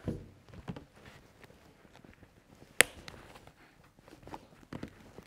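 Hands pressing padding into a Shoei motorcycle helmet's shell: soft thumps and rustling handling noise, with one sharp click about three seconds in.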